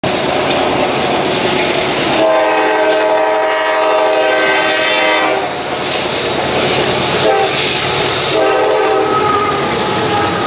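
Diesel freight locomotive air horn sounding a chord: one long blast of about three seconds, then a short blast and a blast of about a second, the pattern of a grade crossing warning. Underneath runs the steady noise of a passing freight train's wheels on the rails.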